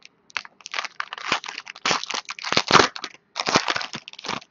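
Foil wrapper of a trading-card pack crinkling and tearing as it is ripped open and peeled off the cards, in an irregular run of crackles that stops near the end.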